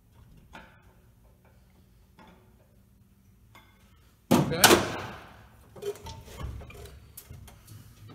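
Metal clanking at an engine hoist: a sudden loud clank a little past four seconds in that rings briefly, then a few lighter knocks and rattles.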